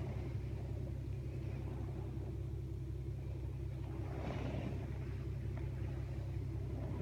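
Strong wind buffeting the microphone: a steady low rumble, with a gust swelling up a little past halfway through.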